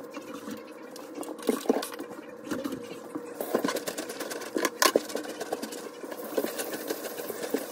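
Wet cotton T-shirt being squeezed and scrubbed by rubber-gloved hands in soapy water in a sink, with irregular squelches, splashes and clicks. A steady hiss joins in about three and a half seconds in.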